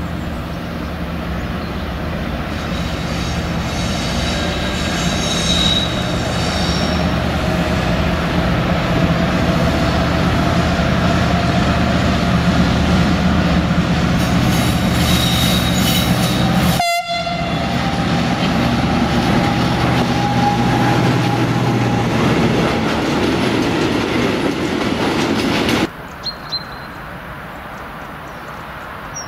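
Diesel-hydraulic shunting locomotive of the DB class 290 family running loudly as it draws a string of empty flat wagons, a steady engine drone under a drawn-out rising whine, growing louder over the first several seconds. The sound drops off abruptly near the end to a much quieter railway background.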